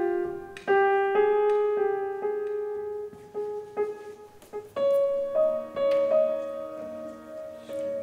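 Solo piano playing a slow line of single struck notes, each ringing on and fading. A lower accompaniment comes in about five seconds in.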